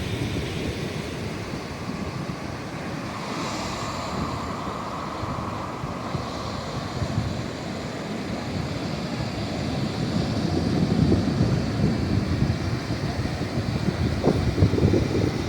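Ocean waves washing onto the shore with wind buffeting the microphone; the surf swells louder in the second half.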